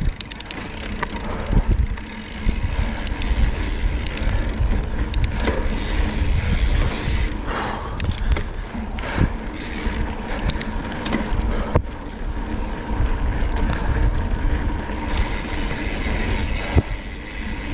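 Cannondale Scalpel-Si full-suspension mountain bike rolling fast down a rough dirt trail: steady tyre noise over the loose surface, sharp clicks and knocks from the bike rattling over bumps, and a heavy wind rumble on the microphone.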